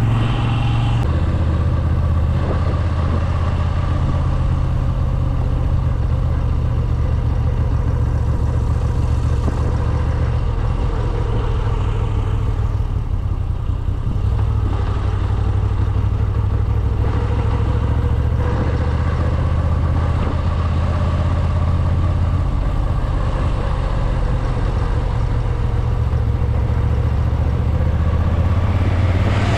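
Moto Guzzi V7 850 Special's air-cooled V-twin running through its original exhaust while riding, a steady engine note whose pitch rises and falls gently with the throttle. Heard from inside the rider's helmet.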